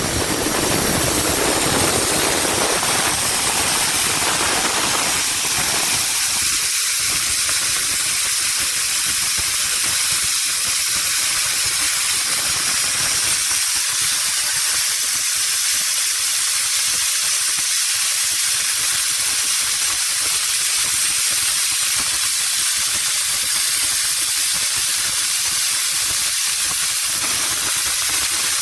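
Steady loud hiss of a plasma cutter's torch running on compressed air. About six seconds in, the deeper rumble under the hiss drops away and the hiss carries on evenly.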